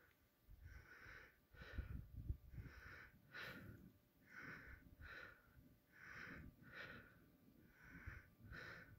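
Faint breathing, an even in-and-out about every second and a half to two seconds, over a low rumble.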